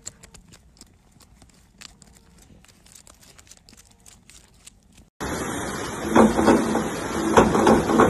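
Faint clip-clop of hooves trotting on a gravel road. About five seconds in it cuts off, and loud, echoing noise of an indoor swimming-pool hall takes over, with several sharp knocks.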